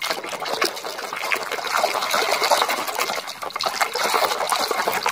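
Water sloshing and splashing in a plastic basin as a hand scrubs a mud-caked toy under the surface, churning the water into foam, with many small irregular splashes.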